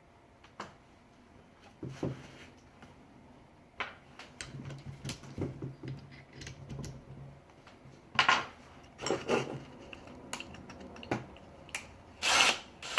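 Metal parts of a DeWalt reciprocating saw being handled and fitted by hand during reassembly. Scattered clicks and taps, with a few short scraping or rattling bursts in the second half, the loudest near the end.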